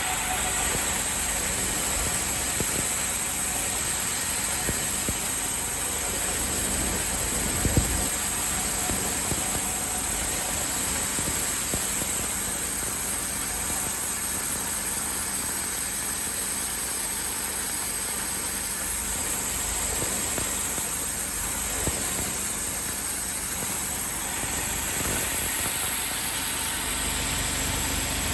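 Bandsaw mill running steadily through a cut in a log, its engine and blade giving an unbroken mechanical noise with a steady high whine above it.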